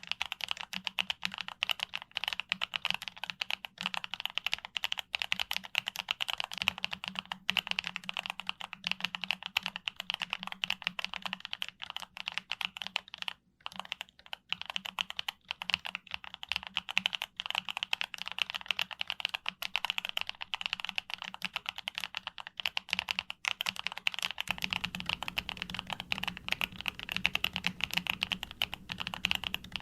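YUNZII B75 Pro mechanical keyboard being typed on quickly and continuously, a dense stream of key clicks with a brief pause about halfway through.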